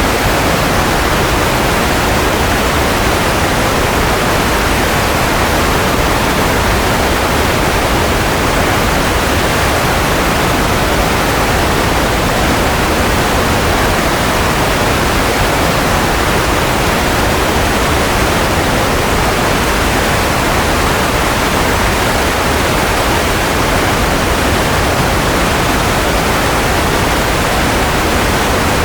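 Steady white noise: an even, unbroken hiss, strongest in the middle of the range, with no hum or tone in it.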